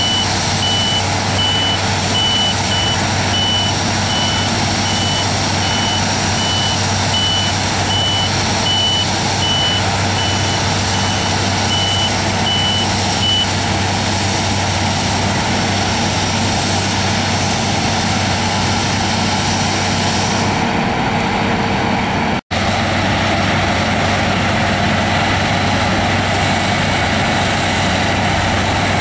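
Claas Lexion 670 Terra Trac combine harvester running steadily under load while threshing soybeans, a continuous machine drone with a low hum. A high electronic warning beep repeats about once a second through the first half, then stops. The sound cuts out for an instant about three-quarters of the way through.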